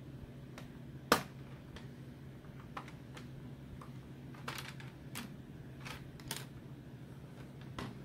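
Plastic snap clips of an Asus X441BA laptop's top case clicking loose as a thin plastic card is worked along the seam: one sharp click about a second in, then several lighter, scattered clicks.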